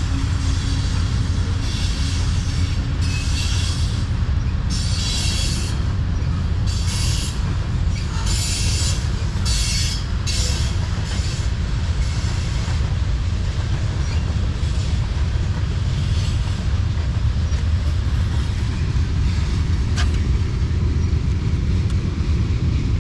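Freight cars of a long Norfolk Southern manifest train rolling past at a constant speed, a steady low rumble from the wheels on the rails. During the first half there are repeated short bursts of high-pitched wheel squeal.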